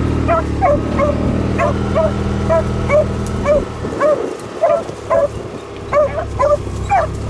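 Beagles baying on a rabbit's track: short, high yelping calls in a quick irregular series, two or three a second. A Kubota utility vehicle's engine idles underneath as a low hum, dropping away about halfway through.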